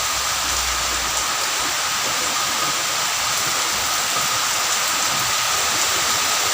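Heavy rain pouring steadily, an even hiss with no let-up.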